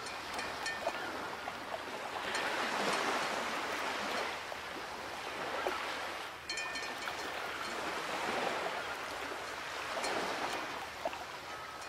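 Ocean waves washing in and drawing back, swelling and fading about three times.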